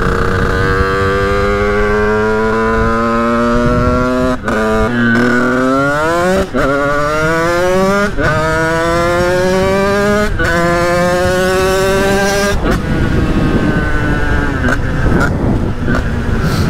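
Sherco 50cc two-stroke motorcycle engine accelerating hard through the gears: the pitch climbs in each gear and drops sharply at each of five upshifts, then falls gently as the throttle eases off near the end.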